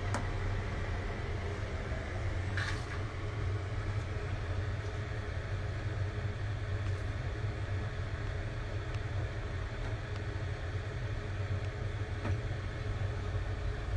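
Steady low rumble of a gas stove burner under a simmering pan of rice porridge, with a light clink of a metal spoon against the aluminium pan about three seconds in.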